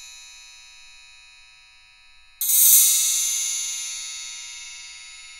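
A SpringTree coil chime, a hanging steel spiral, rings on and fades from an earlier strike. About two and a half seconds in it is played again, louder, swelling briefly as it is scraped along the coils into a glissando, then rings down slowly with a bright shimmer.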